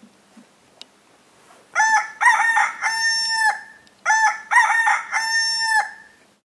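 A rooster crowing twice, the two crows identical in shape and each just under two seconds long, then cut off to dead silence.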